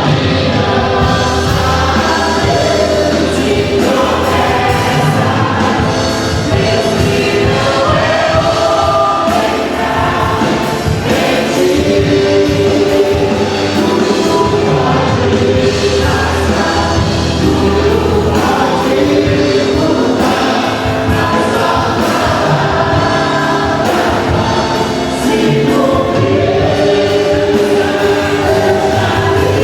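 Christian worship music: a choir singing a melody over instrumental accompaniment.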